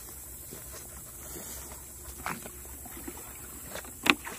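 Red plastic bucket dipped into a pond and filled, with water splashing and sloshing in short bursts. A single sharp knock near the end is the loudest sound.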